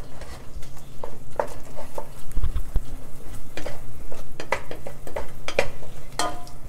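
A utensil stirring chopped onion and garlic in oil in a cooking pot, scraping and knocking against the pot in short, irregular strokes.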